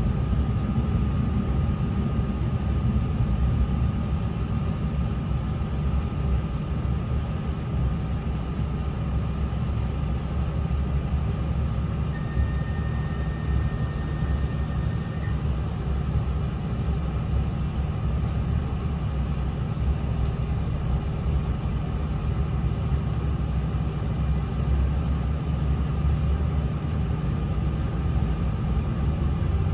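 Steady low rumble of an NI Railways Class 3000 (CAF C3K) diesel multiple unit, with a faint steady whine running through it. A thin high tone sounds for about three seconds near the middle.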